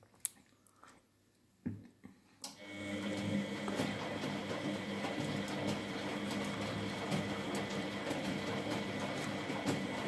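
Miele front-loading washing machine mid-wash: a short pause with a few sharp clicks, then about three seconds in the motor starts and the drum turns, a steady motor hum with laundry tumbling in the water.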